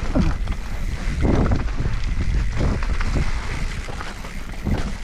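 Wind buffeting the microphone, with the rumble and rattle of a mountain bike descending a dirt trail, swelling and easing in uneven surges.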